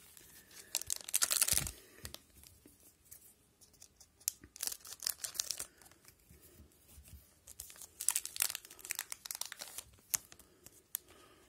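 Wrapper of an O-Pee-Chee hockey card pack being torn open and crinkled by hand, in three spells of tearing and rustling with small clicks, the loudest about a second in.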